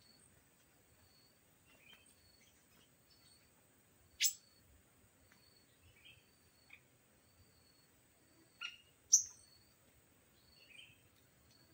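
Small birds calling: sharp downward-sliding chips, the loudest about four seconds in and again near nine seconds, among fainter repeated high peeps and short chirps.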